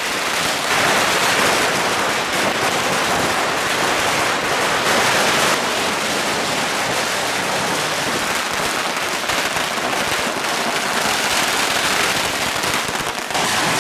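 Strings of firecrackers going off continuously: a dense, rapid crackle of many small bangs.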